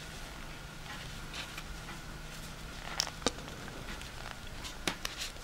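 Circular knitting needles clicking as stitches are knitted plain, with soft scratching of yarn being worked through the stitches. A few sharp ticks come about three seconds in and again near the end.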